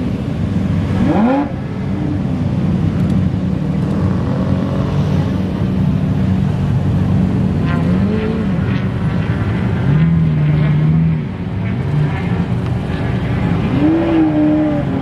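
Lamborghini V12 engines running at low speed in slow traffic, with short throttle blips that raise and drop the revs several times, about a second in, around eight seconds in and near the end.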